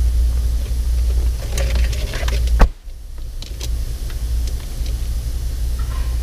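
Wiring harness and plastic dash trim being handled under a car's dashboard: scattered light clicks and rattles, with one sharp knock about two and a half seconds in, over a steady low rumble.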